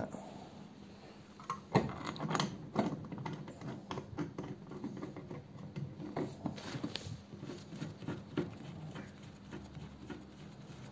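Hands seating the metal lid on a remote bypass oil filter canister and turning its centre bolt: irregular light metal clicks, taps and scrapes, the sharpest knocks in the first three seconds.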